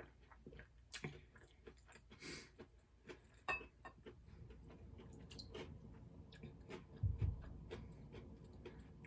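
Close-up chewing of food, with many small irregular clicks and a couple of brief noisy bursts. A low thump about seven seconds in.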